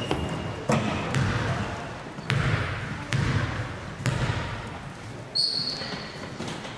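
Basketball bouncing on a gym floor: about five heavy bounces, a second or so apart, each echoing through the hall. A short high squeak comes near the end.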